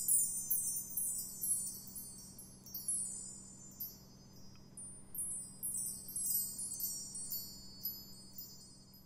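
Wind chimes tinkling: a flurry of high, ringing struck notes at the start and another about six seconds in, thinning out near the end, over a faint steady low hum.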